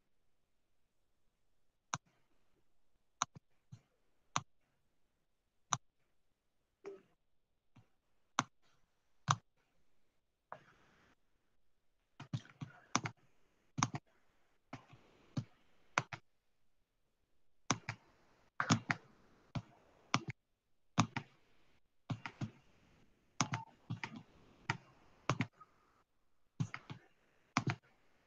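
Clicking of a computer mouse and keyboard: single clicks a second or so apart at first, then quicker bunches of clicks from about twelve seconds in.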